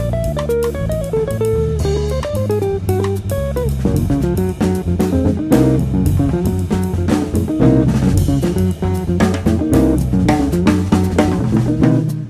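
Background instrumental music with electric guitar, bass and a drum kit keeping a steady beat.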